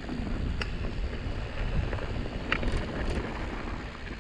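Mountain bike rolling downhill on a dry dirt trail: wind buffeting the microphone over the tyres and the rattle of the bike, with a couple of sharp clicks.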